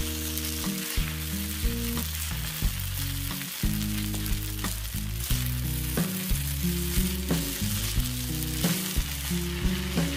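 Fried rice sizzling in a nonstick wok while a plastic spatula stirs and scrapes it, with a light click of the spatula against the pan every second or so. Background music with a low melody plays under it.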